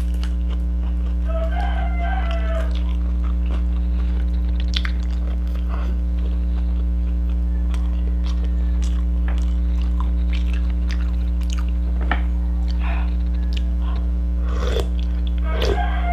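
A steady low hum, with small clicks and chewing as fingers pick at a fried pompano and a spoon goes into the soup bowl. A rooster crows once about a second in and again near the end, quieter than the hum.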